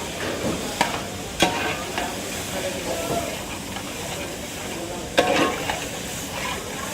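A metal ladle stirring and scraping in a large cooking pot while food sizzles in hot oil, with three sharp clanks of metal on metal, the loudest about five seconds in.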